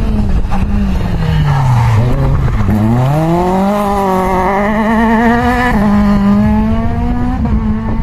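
Peugeot rally car's engine driven hard: its pitch drops as the car slows into a bend, then climbs steeply as it accelerates out, with a gear change about six seconds in and another near the end.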